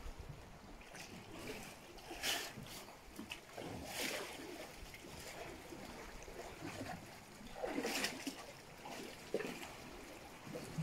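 Small waves lapping and splashing against the rocks and pebbles of a sea shoreline, with a few louder washes about two, four and eight seconds in.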